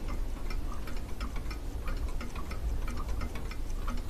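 Wall clock ticking steadily, about four ticks a second, over a low room hum.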